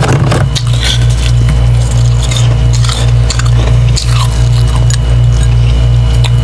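Background music with a deep bass pulsing steadily about three times a second. Under it, faint squishing and clinking of soft slushy ice.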